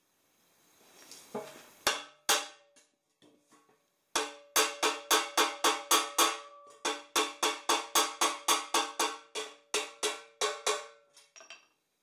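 Hammer blows on the dented end of an exhaust pipe, beating it round, each strike ringing like struck metal. Two blows about two seconds in, then a fast run of about two dozen, three or four a second, stopping near the end.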